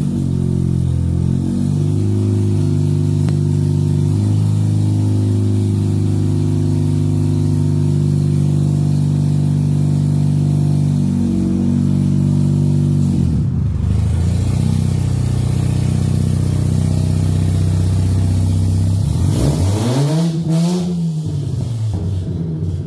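Mazda RX-8's twin-rotor Wankel rotary engine idling just after a start following more than two years of sitting. The idle wavers and steps in pitch during the first few seconds, then runs steadily. A short throttle blip about 20 seconds in rises and falls in pitch.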